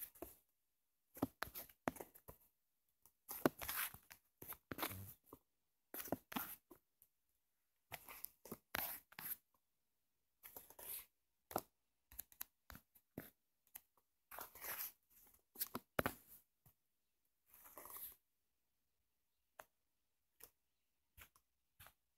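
Fingertip strokes rubbing across a phone touchscreen while drawing: faint, scratchy rubs in short, irregular bursts with silent gaps between them, thinning to a few soft ticks near the end.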